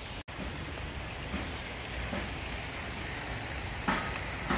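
Steady rushing hiss of a flowing stream, with a brief dropout about a quarter second in.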